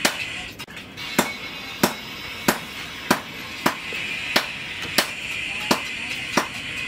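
Background music with a sharp, regular beat, about three beats every two seconds.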